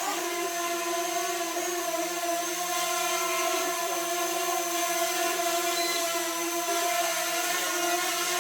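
Drone motors and propellers spinning steadily, a buzzing whine made of several steady tones that waver slightly, on a test run after the propellers were repaired.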